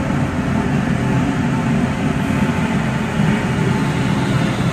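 NJ Transit ALP-45DP dual-mode locomotive standing at the platform with its machinery running: a steady, loud low drone.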